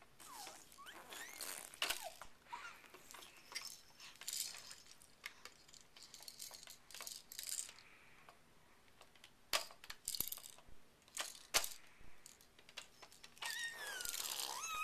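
Hard plastic baby roller toy clicking and rattling in irregular knocks as a baby grabs, tips and rolls it. Near the end a baby's short gliding vocal sound joins in.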